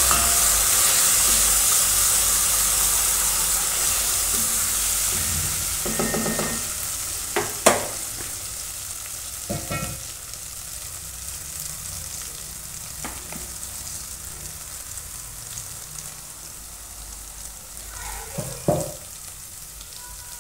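Curry base of onions, tomato paste and curry powder sizzling in a frying pot while being stirred, the sizzle fading gradually, with a few short knocks along the way.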